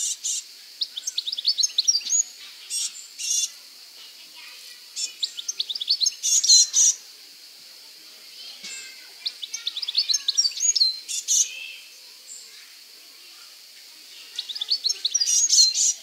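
European goldfinch singing: four bursts of quick, rising, twittering notes, each a second or two long, separated by short pauses.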